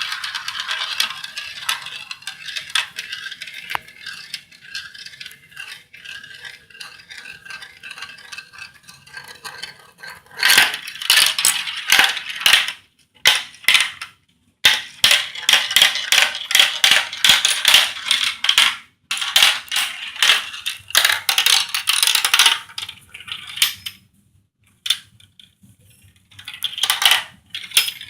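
Marbles rolling and clattering through a plastic marble-run track, a dense rattle of small hard clicks. It comes in several bursts, with a brief pause near the end.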